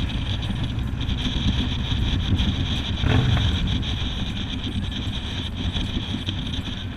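Steady rumble and wind noise on the microphone of a moving vehicle, with a brief louder surge about three seconds in.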